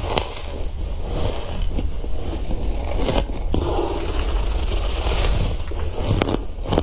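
Close-up biting and chewing of freezer frost: dense crunching and crackling with sharp snaps as the icy chunks break between the teeth.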